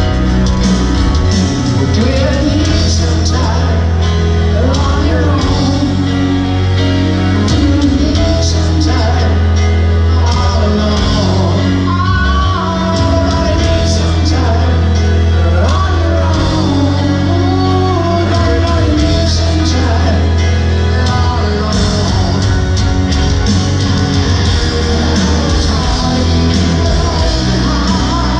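Live rock ballad played through a stadium sound system and heard from far back in the crowd: a lead voice sings over the band, with a heavy, boomy bass.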